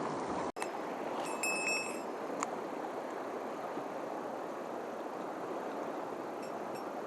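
Small mountain stream running steadily. A brief high-pitched tone sounds a little over a second in, and a single sharp click about a second later.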